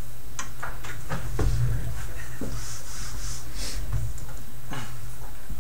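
A felt eraser rubbing across a chalkboard, with scattered light taps and knocks, over a steady low hum.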